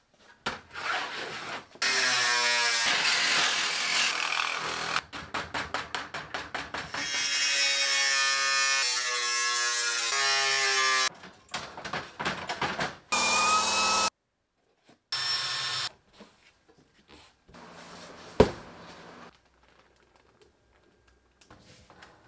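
Power tools cutting and shaping a sheet-metal ring, in short separate bursts: loud cutting stretches, a run of about five quick strokes a second, and a tool whirring up in pitch. One sharp knock comes near the end.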